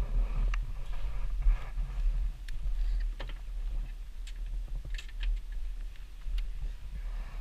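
Irregular light clicks and rustling from gloved hands handling riding gear close to the microphone, over a steady low rumble.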